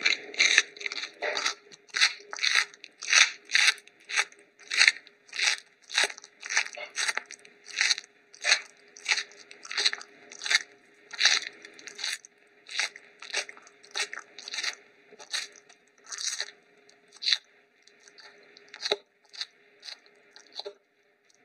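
Steady rhythmic crunching, about two crunches a second, growing weaker near the end.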